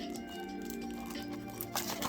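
Background music with held notes, and a brief crinkle near the end.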